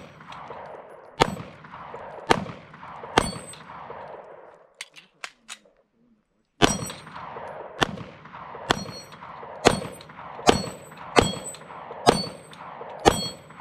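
Handgun shots at a slow, steady pace, about one a second, each followed by the ring of a hit steel target: three shots, a short pause with a couple of faint clicks, then about eight more.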